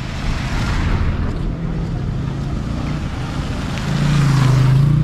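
Street traffic: a steady wash of road noise with a motor vehicle's engine hum, which grows loudest as a vehicle passes close about four seconds in.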